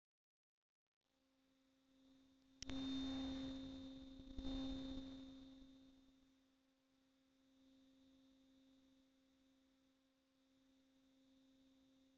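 A faint, steady low hum with overtones. About two and a half seconds in there is a sharp knock followed by a few seconds of rustling noise that fades, with a second bump near four and a half seconds.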